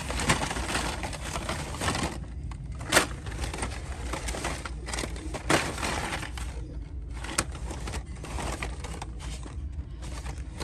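Hot Wheels cars on cardboard blister cards being rummaged through in a bin: cardboard cards and plastic blisters rustling and crinkling against each other, with a few sharp clacks as cards are knocked together.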